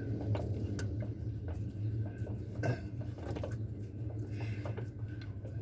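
Metal hand tools clicking and clinking as screws are backed out of a car's trunk, over a steady low hum.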